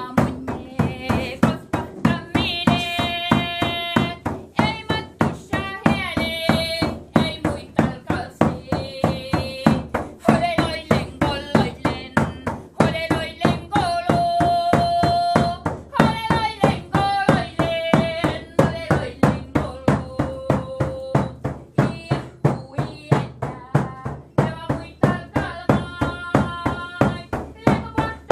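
A woman singing a traditional Sami joik in long held, wavering notes over a hand-beaten frame drum struck at a steady pulse of about three beats a second.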